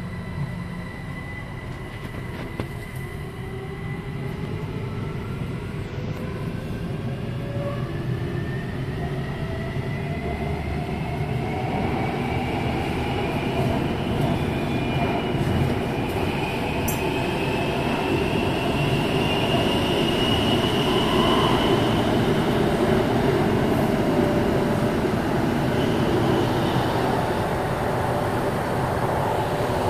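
Taipei Metro C321 train's variable-frequency traction inverter whining as the train accelerates away from a station: several tones rise together in pitch for about twenty seconds, then level off. Underneath is a rumble of wheels on rail that grows louder as speed builds. The uploader takes the changed inverter sound for a sign of a refurbished C321.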